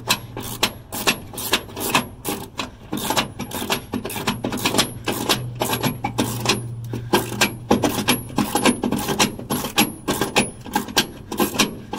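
Socket ratchet clicking in quick runs of sharp clicks as it is swung back and forth, driving a door striker bolt home with an Allen-head bit.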